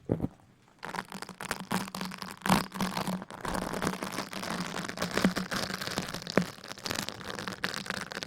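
Close-miked ASMR rustling: dense crinkling and scratching full of small crackles, starting after a brief lull just under a second in, over a faint steady low hum.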